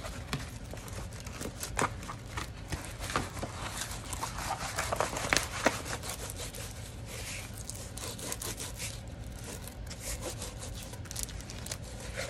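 Rustling and crinkling of a rolled diamond-painting canvas and its paper wrap being handled and unrolled, in irregular crackles and rubs.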